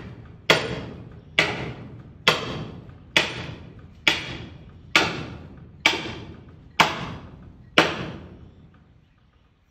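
Hammer blows driving a long 3/4-inch bolt into a wooden barn brace: nine steady strikes, about one a second, each with a short ringing tail, stopping near the end.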